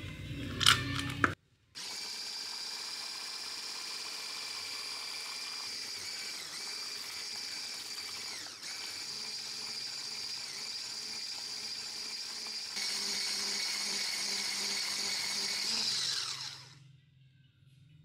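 Electric mixer beating chilled cream and cream cheese in a glass bowl until it doubles in volume: a steady motor whine that gets louder about thirteen seconds in, then drops in pitch and stops near the end. Two sharp knocks come in the first second or so.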